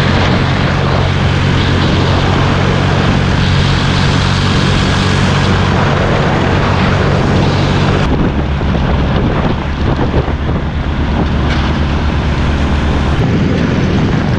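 A vehicle's engine running steadily under heavy wind noise on the microphone, with a low hum throughout; the sound changes abruptly about eight seconds in.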